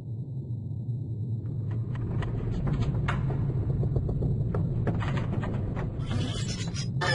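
Cartoon sound effect of a giant keyboard slowly tipping over: a low rumble that grows louder, with scattered clicks from about a second and a half in and a short burst of hiss about six seconds in.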